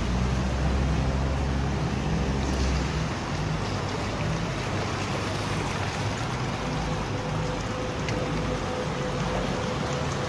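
Floodwater rushing and rain falling, a steady noisy wash, with a low rumble underneath for the first few seconds and a faint steady hum from about three-quarters of the way in.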